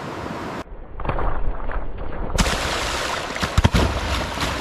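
Rushing, churning water with a few low thumps about three and a half seconds in; the noise changes abruptly twice.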